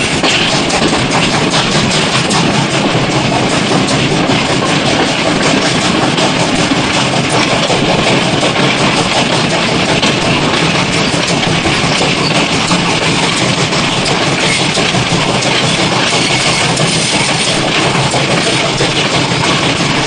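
Steam train running fast, a steady, rapid rhythm that keeps up without let-up.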